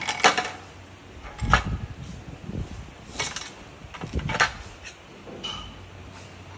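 Metal tool clanks and knocks on a Suzuki DF90A outboard motor under repair: five or six separate sharp strikes about a second apart, the loudest right at the start.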